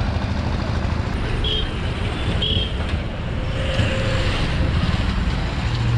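Road traffic noise: motor vehicles running along the road with a steady low engine hum. Two short high beeps sound about a second apart in the first half.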